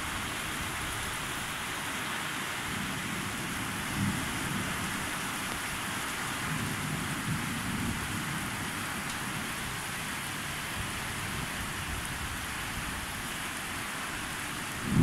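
Steady rain falling during a thunderstorm, with faint low rumbles of distant thunder, a brief one about four seconds in.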